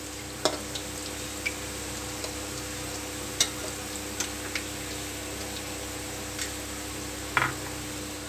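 Sliced onions and whole spices frying in hot oil in an aluminium karahi: a steady sizzle with scattered sharp pops and clicks, the loudest near the end.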